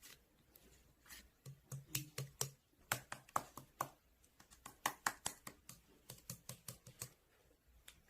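Toy slime being squeezed and poked by hand, giving a quick, irregular run of sticky clicks and pops that stops near the end.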